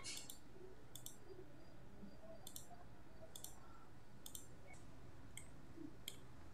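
Faint computer mouse clicks, about one a second, as points are placed on a map, over a low steady room hum.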